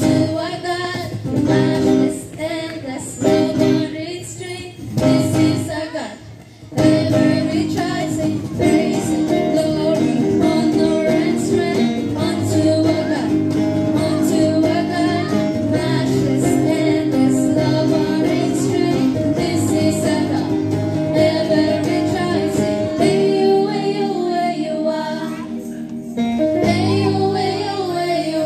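Live praise band amplified through a PA: two women singing into microphones over acoustic guitar and keyboard. The music is broken and stop-start for the first several seconds, then fuller and continuous from about seven seconds in.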